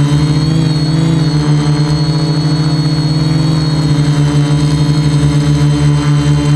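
Quadcopter's electric motors and propellers running in flight, a steady pitched buzzing hum that wavers slightly.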